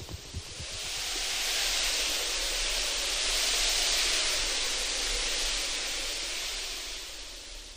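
A long hiss of rushing noise, like wind or surf, that swells over the first few seconds and fades out near the end, with a few soft low thumps at the start.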